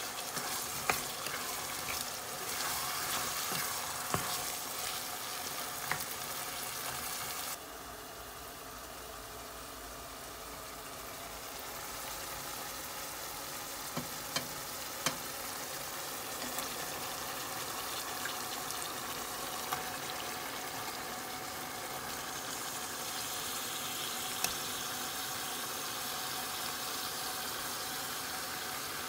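Chopped onions, tomatoes, peppers and green chillies frying in a non-stick pan: a steady sizzle, with a few clicks of a spatula against the pan as they are stirred.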